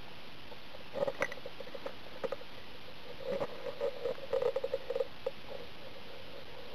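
Steady background hiss with scattered short bursts of crackling rustle: a few about a second in and a dense run of them between about three and five seconds in.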